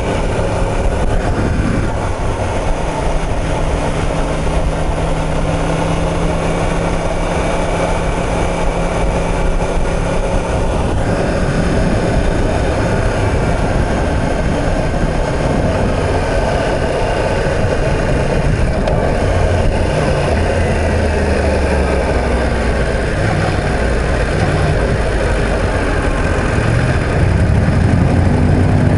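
2016 Yamaha YZF-R1M's crossplane inline-four engine running while riding, under steady wind and road noise, its pitch rising and falling gently with the throttle. A deeper engine rumble grows louder near the end.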